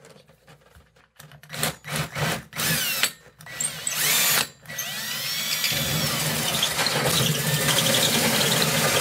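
Ridgid cordless drill turning a hole saw into a fiberglass shower wall: a few short stop-start bursts of drilling, then running steadily from about six seconds in.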